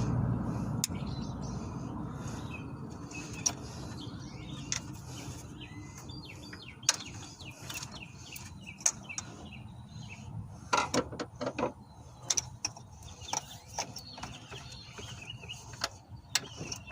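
Scattered sharp clicks and knocks of parts and hand tools being handled under the hood, more frequent in the second half. A low rumble fades away over the first few seconds, and a few bird chirps are heard.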